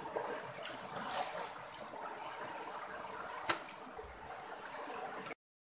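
Shallow stream running and trickling over rocks, with one sharp knock about three and a half seconds in. The sound cuts off suddenly near the end.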